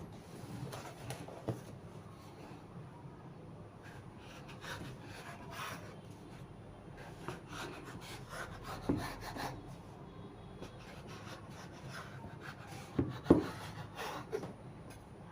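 Chin chin dough being rolled and cut on a work surface: soft rubbing and scraping strokes with a few sharp knocks, the loudest about 13 seconds in.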